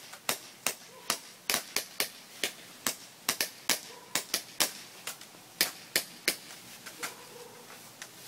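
Airsoft guns firing: a rapid, irregular run of sharp snaps, two or three a second, thinning out to a single shot near the end.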